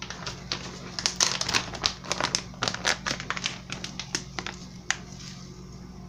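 Crinkling and crackling of a plastic spice packet being handled and opened, dense and irregular for a couple of seconds about a second in, then a few sparser clicks. A steady low hum runs underneath.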